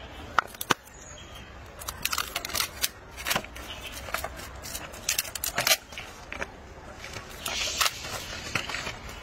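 Plastic soda bottle crinkling, clicking and scraping on stone paving as a macaque bites, twists and paws at it, in irregular sharp clicks and short bursts of crackling.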